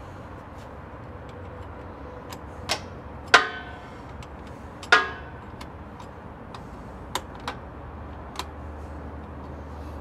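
Metal wrench clinking against truck battery terminal bolts and cable clamps as the connections are tightened down. Two louder ringing clinks come about a second and a half apart, with a few lighter ticks before and after, over a steady low hum.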